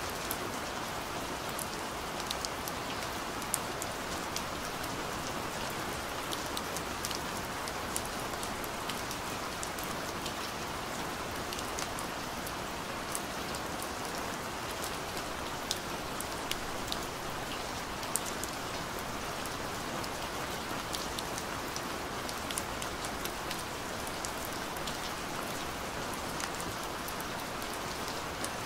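Steady rain: a continuous even hiss with many scattered light drop ticks.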